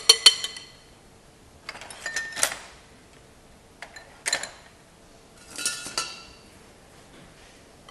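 Metal kitchenware clinking and knocking: a sharp ringing clank at the start, then three more short bursts of clatter a second or two apart, as a strainer, bowl and baking tin are handled.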